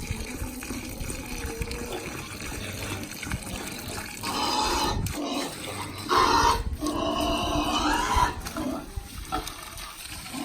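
Pigs calling: three loud, high-pitched calls in the second half, over a steady low rumble.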